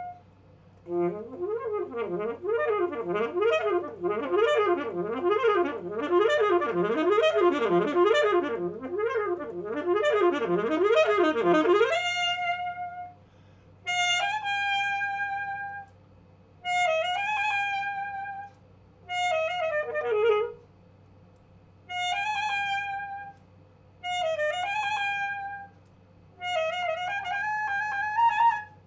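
Alto saxophone playing solo. For about eleven seconds it runs a fast, continuous figure rising and falling over and over. Then it plays short held notes, several scooping up into pitch, each followed by a brief silence.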